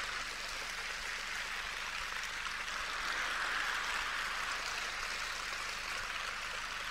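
Large audience applauding steadily in response to a joke's punchline.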